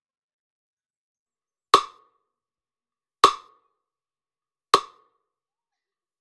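Metronome ticking with a wood-block click once every second and a half (40 beats a minute), the beat that paces each dip of the dipping test. The first tick comes just under two seconds in, and nothing else is heard between the ticks.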